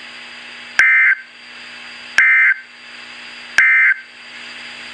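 NOAA Weather Radio EAS/SAME end-of-message data burst, a short harsh digital buzz sent three times about a second and a half apart. It marks the end of the Severe Thunderstorm Warning broadcast. A faint steady radio hum runs underneath.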